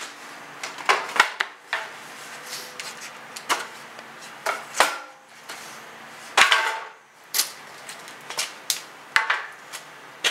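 Irregular sharp knocks and clatter of wooden boards and hand tools being handled, about a dozen hits spread unevenly.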